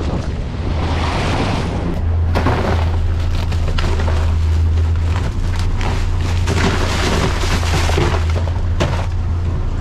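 Wind buffeting the microphone on a fishing boat, over a steady low rumble from the boat's engine, with scattered sharp knocks throughout.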